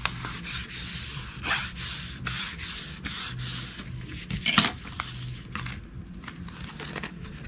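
A diamond painting canvas and its clear plastic cover film rustling and rubbing under the hands as the film is lifted and the canvas is turned over and pressed flat, in a run of short scrapes with one louder crinkle about four and a half seconds in.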